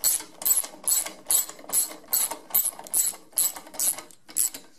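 Socket ratchet clicking in short bursts, about two and a half a second, as the handle is swung back and forth to tighten self-tapping screws; the clicking stops near the end.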